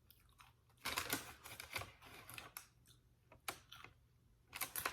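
Close-miked chewing with crisp, crackling crunches of Doritos tortilla chips, coming in irregular clusters of bites.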